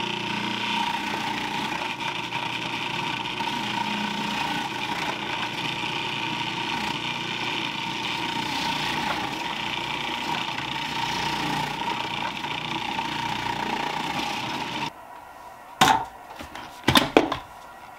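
Electric food processor running steadily with its shredding disc as raw potatoes are pushed down the feed tube and grated. The motor cuts off suddenly about three-quarters of the way through, followed by two sharp knocks.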